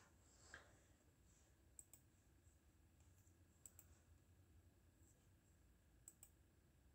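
Near silence: room tone with three faint double clicks spaced about two seconds apart.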